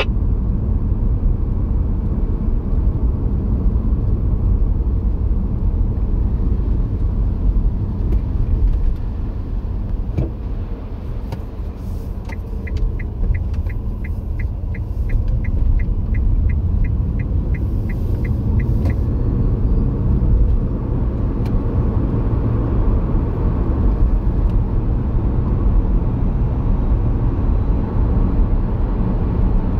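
Car cabin noise while driving: a steady low engine and road rumble that eases for a few seconds around the middle. As the car reaches a junction, the turn indicator ticks evenly, about three ticks a second, for roughly six seconds.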